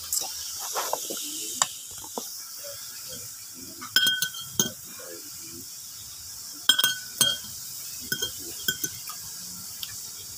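Cutlery clinking against a plate: a handful of sharp, briefly ringing clinks, the loudest about four seconds in and again around seven seconds, over faint background voices.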